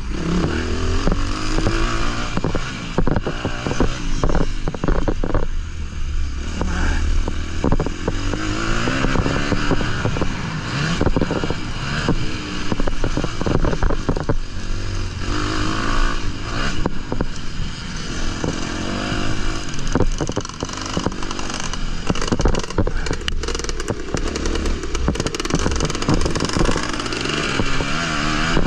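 Onboard sound of a Honda motocross bike's engine under hard riding, revving up and dropping back over and over as the rider accelerates and shifts. Knocks and rattles come through from the bike over the bumps.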